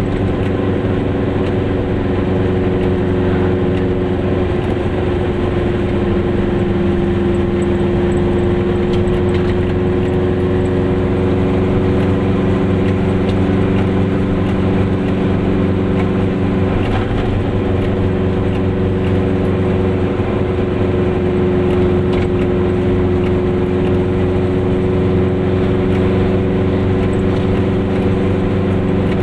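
Goggomobil's two-stroke twin-cylinder engine running steadily while driving, its pitch holding nearly level, over road noise.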